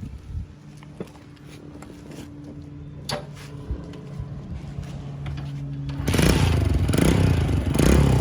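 Modified Honda SS100 motorcycle's single-cylinder engine running with a steady low hum, then revved up hard about six seconds in, much louder.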